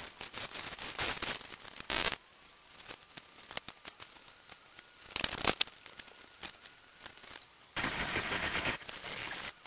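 Rapid scratching and tapping of paint brushes on canvas, with louder brief bursts about two seconds in and again around five seconds. From about eight seconds a steady rushing noise takes over.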